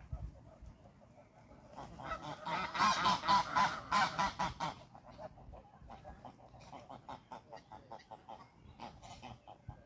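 Greylag geese honking: a loud, rapid flurry of calls for about three seconds, then quicker, softer short calls.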